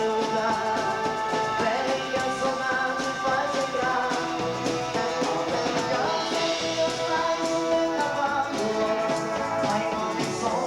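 A dance band playing a song, with a steady drum beat under guitar and other instruments.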